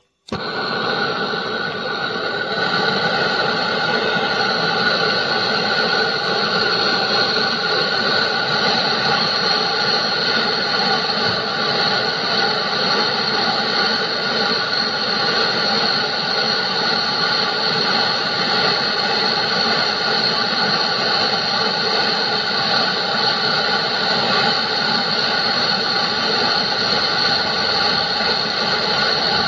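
Gas brazing torch lighting with a sudden start just after the beginning, then burning with a steady rushing hiss that holds a few steady tones, as it heats a copper-to-steel tube joint for bronze brazing.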